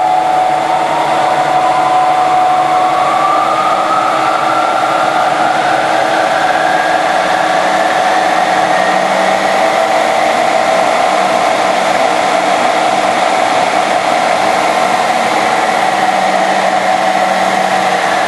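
1959 Voest engine lathe's variable-speed pulley drive running on a newly fitted, cut-down belt, with a steady whine. A second whine rises in pitch over the first ten seconds or so as the drive is shifted toward high speed and the pulleys move round.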